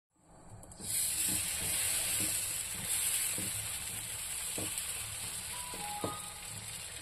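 Pesarattu (green gram dosa) batter sizzling on a hot griddle, a steady hiss that comes in about a second in, with a few light taps and a brief clink.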